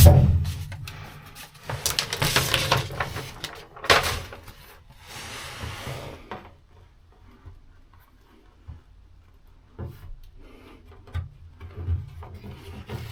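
Handling of a self-adhesive sound-insulation sheet: a knock, then rustling, peeling noises and another sharp hit, settling into quieter scattered taps and rubbing.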